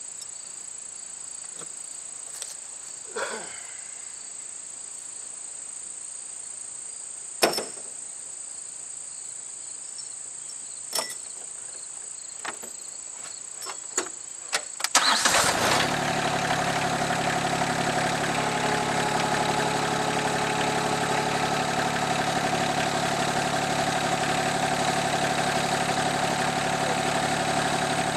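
A few short knocks over a steady high insect trill, then about halfway through the Rural King RK24 subcompact tractor's engine is started and settles into a steady idle.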